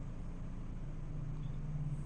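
Domestic cat purring steadily: a continuous low rumble with a fine pulsing grain.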